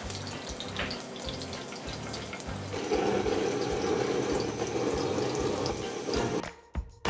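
A slice of butternut squash sizzling in hot fat in a frying pan, with small crackles. About three seconds in, a handheld kitchen blowtorch comes on over the pan with a steady, louder rushing hiss that cuts off shortly before the end.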